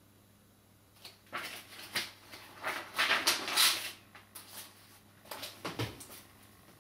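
Paper pages of a spiral-bound sketchpad rustling as they are flipped over and the pad is handled. An irregular string of crisp rustles and scrapes, loudest around the middle and tailing off near the end.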